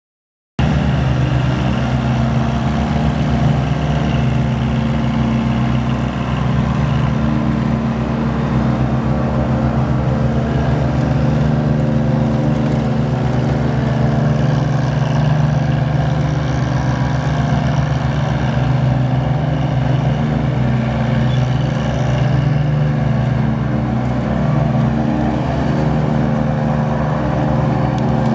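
John Deere 1445 mower's 28 HP diesel engine running at a steady speed, cutting in abruptly about half a second in.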